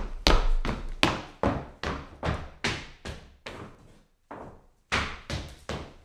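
Hard-soled shoes walking on a wooden floor: sharp heel-strike footsteps about two to three a second, each with a short ring after it, with a quicker run of steps near the end.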